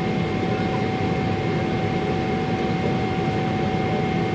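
Steady jet engine and airflow noise inside the cabin of a Boeing 777 airliner in flight. There is a constant low rush, with a steady hum and a fainter high whine running through it.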